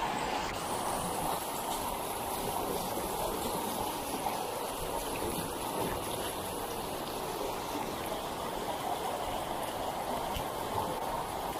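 Muddy rainwater runoff rushing steadily down an eroded gutter channel beside a dirt street.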